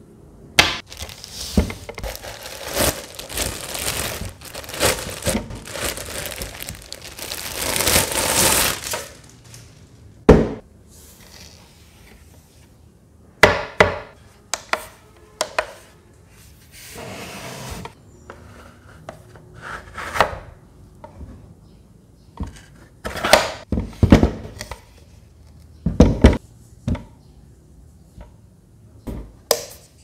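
Plastic wrapping crinkling and rustling under handling for about the first nine seconds, then scattered hard plastic knocks and clacks as the clear plastic aquarium tank is handled and set on its base.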